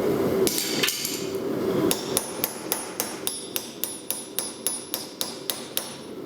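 Forging hammer striking hot steel on an anvil: a couple of blows, then a quick, even run of about four ringing blows a second for some four seconds, as the punched bottle-opener blank is flattened back out.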